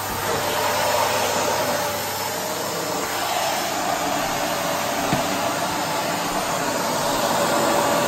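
Rowenta Compact Power Cyclonic bagless canister vacuum cleaner's 750-watt motor running steadily: an even rush of air with a faint steady whine. A brief click about five seconds in.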